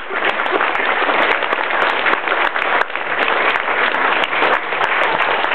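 Audience applauding: many hands clapping together in a steady, dense wash.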